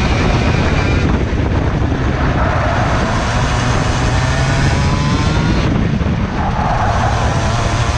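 IAME 125cc two-stroke OKJ kart engine on the onboard camera, revving up steadily under throttle out of a corner, briefly dropping off about six seconds in as the driver lifts, then rising again.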